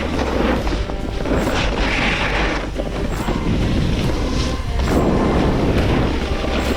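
Background music with a low, boomy rumble and a pattern that repeats about every second and a half.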